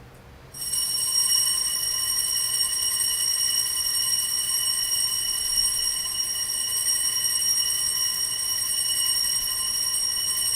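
Altar bells rung continuously at the elevation of the chalice during the consecration, a steady high ringing that starts about half a second in.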